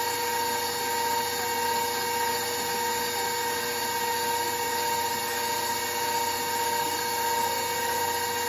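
Electric stand mixer running steadily, its wire whisk beating cookie batter in a stainless steel bowl: an even motor whine that holds one pitch throughout.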